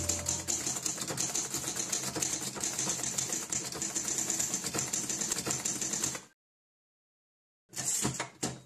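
Typewriter sound effect: rapid, continuous keystroke clacking for about six seconds, then a pause and a second short run of clacks near the end.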